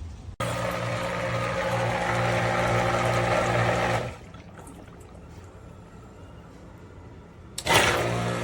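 Submersible sump pump running: a steady electric motor hum with rushing water as it pumps. It starts abruptly, stops about four seconds in, and starts again near the end.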